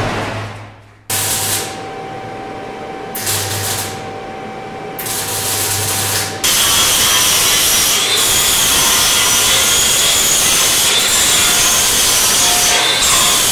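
Electric welding arc hissing and buzzing in three short runs on a steel tube frame. About six seconds in, an angle grinder starts on the steel and runs steadily with a high, slightly wavering whine, smoothing the welds.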